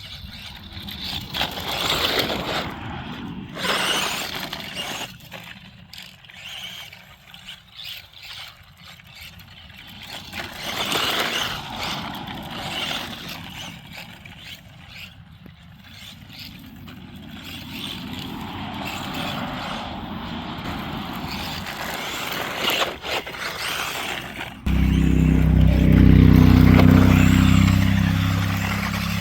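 Electric radio-controlled cars driving on a loose dirt track: motor whine and tyres scrabbling for grip in repeated swells as the cars come near and go away. About 25 seconds in, a sudden loud low rumble sets in.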